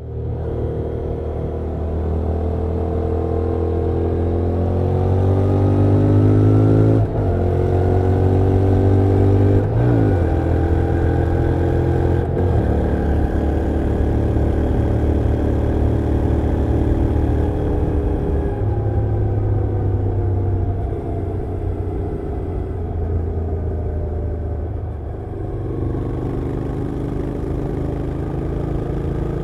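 Honda NC750X's parallel-twin engine under way, pulling up through the gears with short breaks in pitch at the upshifts about 7, 10 and 12.5 seconds in. It then holds a steady cruise, eases off lower around 18 seconds in, and picks up again near the end.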